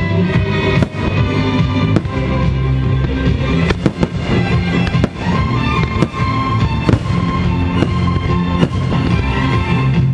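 Aerial fireworks shells bursting, with sharp bangs about once a second, over loud music playing throughout.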